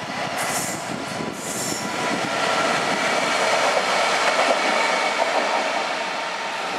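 Class 66 diesel locomotive running light engine past on the rails: its two-stroke V12 diesel running and the wheels rolling on the track. It grows louder to a peak partway through and then starts to fade as it moves away.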